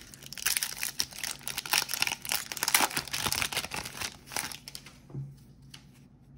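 Wrapper of a Topps baseball card pack crinkling as it is torn open and handled, a rapid crackling that dies down about four and a half seconds in.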